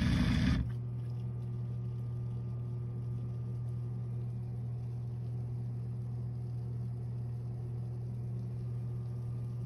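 Handheld electric milk frother whisking milk, loud for about half a second, then cutting out. A steady low hum carries on after it.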